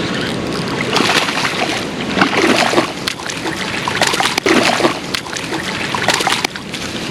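Irregular water splashing over a steady rush of creek and wind noise, in the way a hooked bass splashes at the surface while being played on the line.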